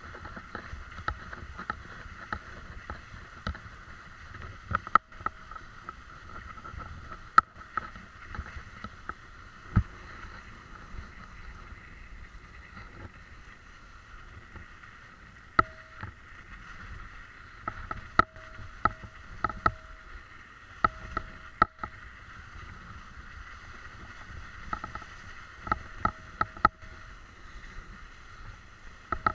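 Bicycle rolling down a snowy track: a steady rolling hiss from the tyres on snow, broken by frequent knocks and rattles as the bike goes over bumps, with a few short squeaks in the second half.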